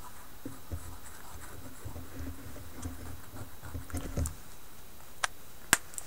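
Soft, irregular handling and squeezing sounds of a small plastic oil bottle as oil is laid onto a honing stone, then two sharp clicks about half a second apart near the end.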